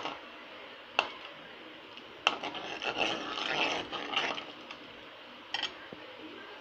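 Steel spoon scraping and clinking against a metal pan while stirring milk: a few sharp clinks about a second apart, a stretch of scraping in the middle, and one more clink near the end.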